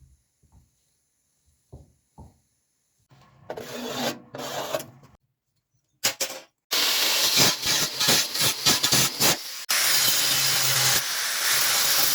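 Electric arc welding: a short burst of crackling hiss about three seconds in, then from about six seconds in a longer, loud, dense crackle and sizzle with a low hum underneath.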